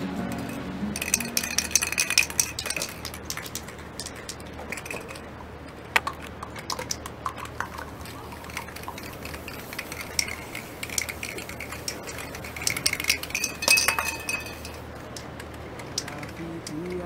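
Spray paint cans being shaken, the mixing balls inside rattling in bursts of metallic clicks: about a second in, around ten seconds in and again around thirteen seconds in. There is one sharp single click about six seconds in.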